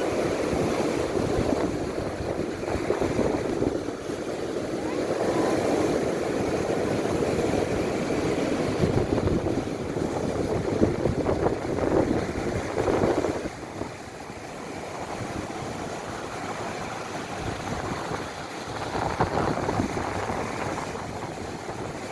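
Rough sea: waves surging and strong wind, with wind buffeting the microphone. The noise eases somewhat about halfway through, then swells again.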